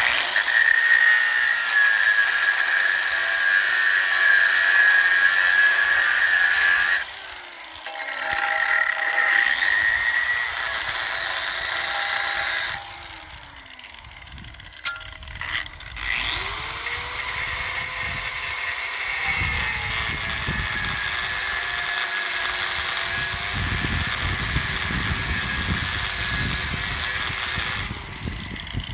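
High-speed rotary cutoff tool spinning up with a rising whine and grinding into steel rivet heads on a truck frame, then winding down, three times: a run of about seven seconds, a short one, and a long one of about eleven seconds near the end.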